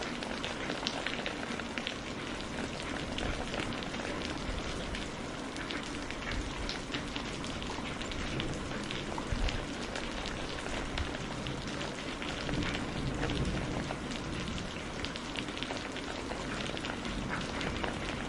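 Heavy rain falling steadily, a dense even hiss with many individual drops ticking sharply through it.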